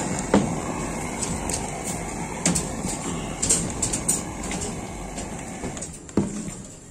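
Butane torch on a gas canister burning with a steady rushing flame noise that fades about six seconds in. Several sharp clicks and knocks are mixed in, from the PVC conduit being handled against the steel rebar.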